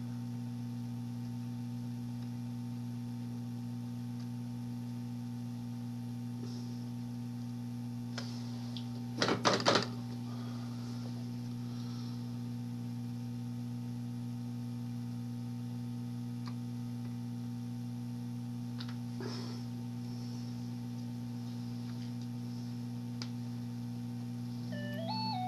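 Steady low electrical hum from the bench equipment, with a short clatter of clicks about nine seconds in.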